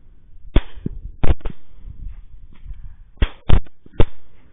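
Rifle shots at wild hogs, about six sharp cracks in quick, irregular succession over a few seconds, with a pause in the middle.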